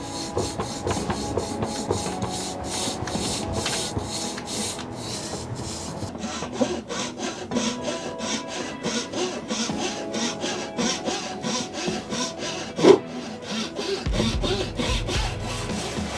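A fine-toothed hand saw rasps back and forth in quick, even strokes, cutting a narrow slot into a thin wooden stick to take a wire harness. There is one sharper knock near the end.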